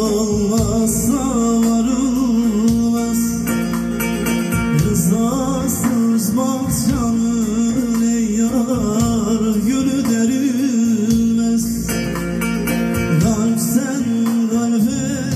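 A Turkish folk song (türkü) sung with plucked-string accompaniment over a steady held low note.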